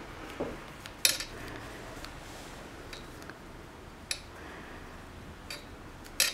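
Crochet hook working chain stitches in yarn, with a handful of light clicks over a faint steady hiss; the sharpest clicks come about a second in and near the end.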